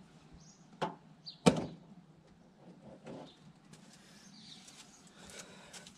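Plastic wiper scuttle (cowl) panel being pried off a Saab 9-5: two sharp plastic snaps about a second in and half a second later, the second the louder, then softer clicks and rustling as the panel is worked loose. Birds chirp faintly.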